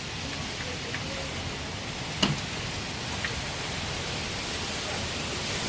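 Hurricane wind and rain as a steady rushing noise, with one sharp knock about two seconds in.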